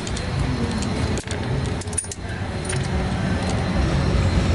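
Metal clinks of a socket wrench and tools on engine bolts, a few sharp clicks over a steady low rumble.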